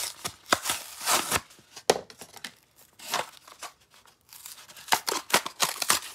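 Paper-backed cardboard of a toy's blister card being torn and peeled off its clear plastic blister, with the plastic crinkling. It comes in several ripping bursts, the longest near the end.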